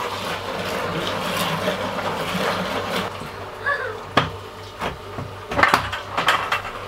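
Foamy wort being stirred briskly with a paddle in a plastic fermenting bucket, a steady sloshing and frothing. About four seconds in, a plastic lid is pressed down onto the bucket, giving several sharp clicks and knocks as it snaps into place around the rim.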